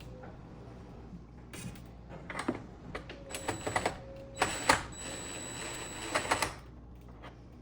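Metallic clicking and scraping as screws are worked out of an oven door's sheet-metal shielding with a nut driver, in a flurry of clicks in the middle of the stretch.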